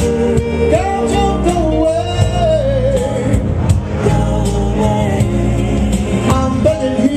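A live pop song: a man singing into a microphone, with electric guitar, bass and a steady beat behind him.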